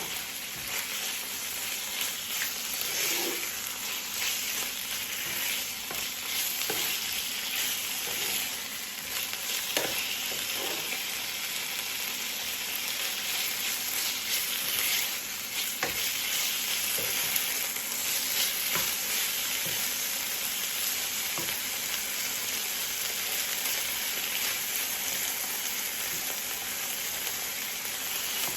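Chicken pieces and onions frying in oil in a pan: a steady sizzle with occasional short clicks and scrapes.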